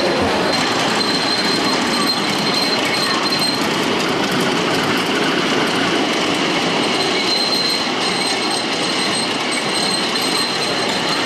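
Ride-on miniature railway train running along its track, the wheels rolling steadily with a high squeal that comes and goes.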